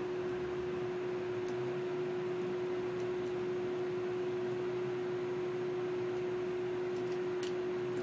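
Steady one-pitch electrical hum over room hiss, with a few faint light ticks as a screwdriver turns a small screw into the deadbolt cylinder housing.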